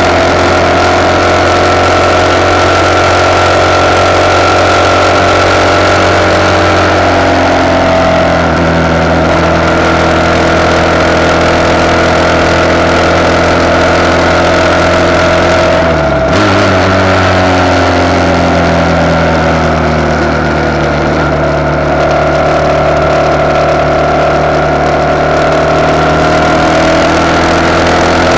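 RPS Hawk 250 motorcycle's single-cylinder four-stroke engine running at road speed through a de-catted CRF230 exhaust, heard from the handlebar with wind rush. The engine note drops a little about a third of the way in, dips sharply and recovers once about halfway through, then eases off and climbs again near the end.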